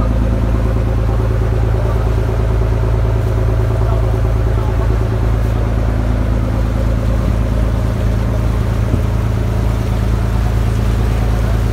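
Fishing boat's engine running steadily under way: a constant, loud low drone.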